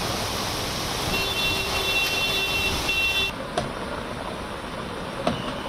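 Rain and traffic on a flooded street: a steady rushing wash of water noise. A high steady tone is held for about two seconds in the first half. After a cut, the water noise goes on with a couple of faint knocks.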